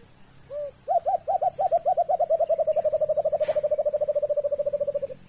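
Alimokon (white-eared brown dove) call: a single low hoot, then a long rolling series of hoots that speed up and drop slightly in pitch before stopping abruptly. This is the call used to lure the bird in.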